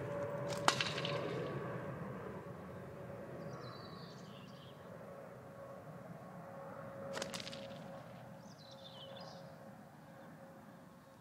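Two sharp cracks about six and a half seconds apart from catapult shots of lead shot at tin cans. The first and louder one rings on briefly.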